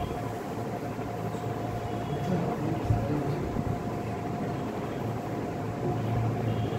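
Steady droning background hum with a thin constant tone running through it and a few faint knocks, typical of a room machine such as a fan or air conditioner.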